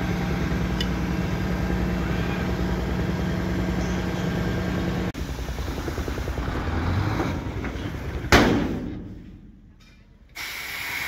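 Dump truck's engine running steadily as its tipper body is raised to dump a load of soil, with a sharp, loud bang about eight seconds in that dies away into a brief lull.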